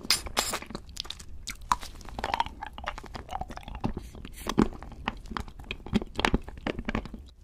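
Close-miked eating sounds of a candy being bitten and chewed: irregular crisp crunches and wet mouth clicks, with the loudest bites about four and a half and six seconds in.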